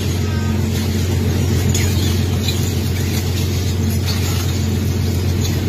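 Steady low drone of a squid-jigging boat's machinery running, strongest in a deep hum. Faint short squeaks come through now and then.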